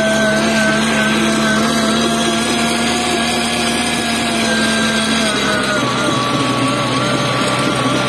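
Small tractor's engine running under way, with a steady high-pitched whine over it; the pitch dips slightly about six seconds in.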